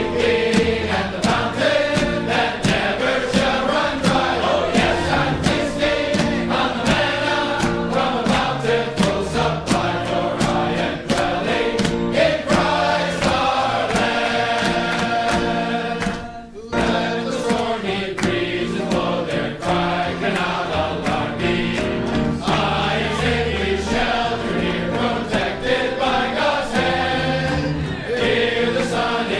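A choir singing a hymn in harmony, with a short break a little past halfway through.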